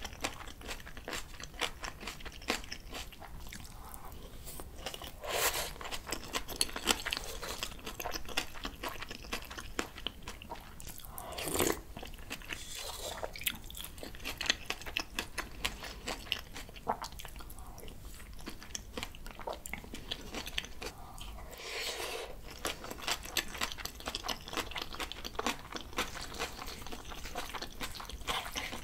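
Close-miked chewing and crunching of bibimbap mixed with raw julienned radish salad and spring cabbage kimchi: a steady run of small crisp crunches, with a few louder mouth sounds in between.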